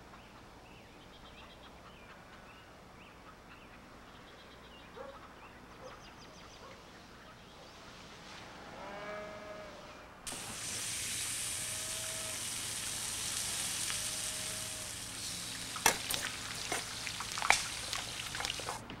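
Quiet at first with a few faint bird calls, then, about halfway through, the sudden steady sizzle of eggs frying in a skillet. In the last few seconds a utensil scrapes and clicks against the pan as the eggs are stirred and scrambled.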